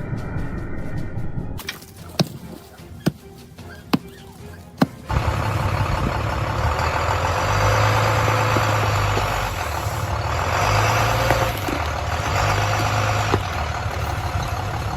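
Four sharp knocks, then, from about five seconds in, a heavy engine running loudly with a steady low hum.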